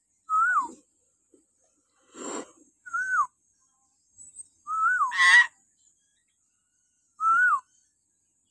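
Hill myna giving short, shrill whistles, four times, each rising briefly and then dropping, with two harsher, rasping calls between them.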